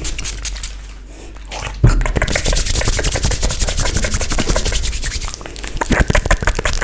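Close-miked ASMR trigger sounds: after a quieter second or two, a fast, dense run of crisp clicks and scratchy rubbing starts and keeps going.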